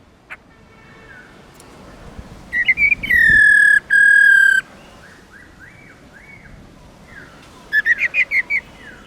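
Black-throated laughingthrush calling: a few quick notes, then two long, loud whistled notes. Quieter wavering notes follow, and near the end a fast run of about seven short notes.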